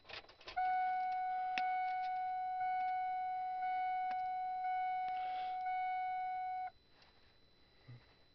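A few clicks from the ignition key, then a car's dashboard warning tone that sounds steadily for about six seconds and cuts off, while the diesel's glow plugs preheat for a cold start. A short low thump follows near the end.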